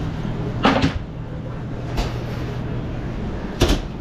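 Kitchen work sounds in a pizzeria: a quick double knock under a second in, a lighter click about two seconds in, and a sharper, louder knock near the end, over a steady low hum of kitchen equipment.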